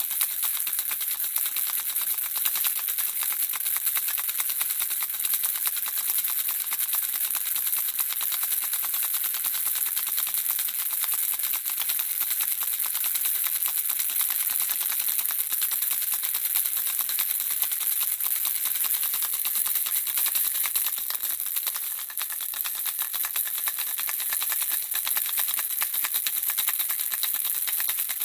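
Handheld baby rattle shaken continuously: a dense, rapid clicking of the small pellets inside, mostly high-pitched, briefly softer about 22 seconds in.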